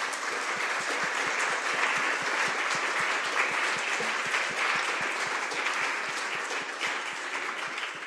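Audience applauding: many hands clapping in a dense, even patter that starts to thin out near the end.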